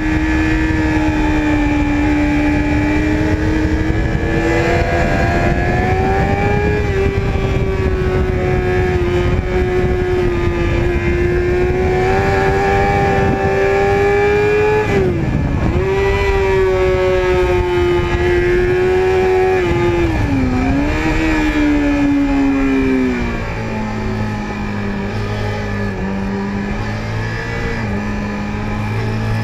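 Sport motorcycle engine running hard at high revs on a track. Its note dips sharply twice, about halfway through and again a few seconds later, then falls to a lower, uneven note for the last several seconds before rising again near the end.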